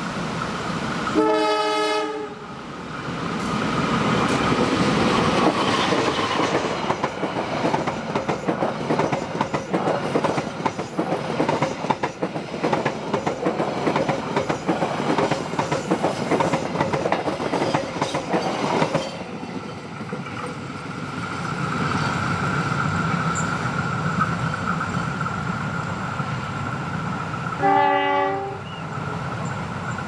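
Passenger train's locomotive horn gives a short blast, then the coaches run past over the bridge for about fifteen seconds with a steady clickety-clack of wheels over the rails. After the train has gone there is a steady hum, and another short horn blast sounds near the end.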